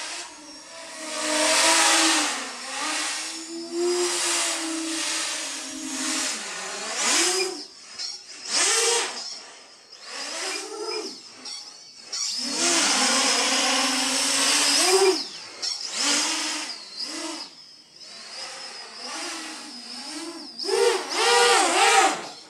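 Electric motors and propellers of a 450-size quadcopter on a 4S LiPo whining in repeated throttle bursts, the pitch rising and falling as it is punched up and chopped through flips. There is a long loud burst partway through and a quick run of four short bursts near the end.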